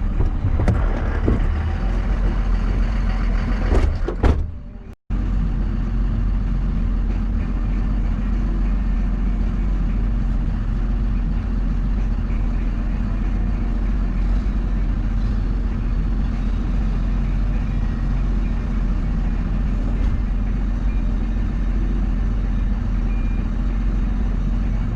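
A truck driving along at a steady speed, its engine and road noise making an even, unchanging drone. Before that there are a few seconds of clatter and clicks, cut off abruptly about five seconds in.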